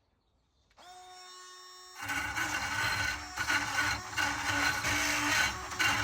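Power drill spinning up just under a second in, then from about two seconds a burr drill bit grinding into the metal of a UAP lock, the motor's pitch wavering under load.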